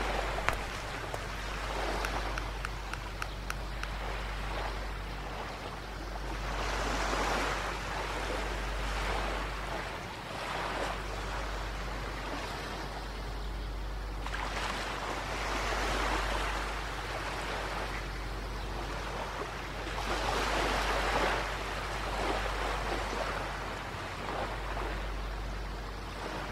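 Sea surf washing onto a sandy beach, swelling and fading in slow surges every several seconds, over a steady low rumble.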